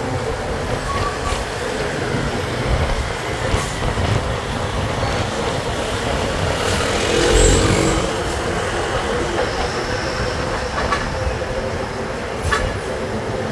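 Road traffic noise close beside a concrete mixer truck in slow traffic: a steady engine rumble with road noise, louder for a moment about halfway through.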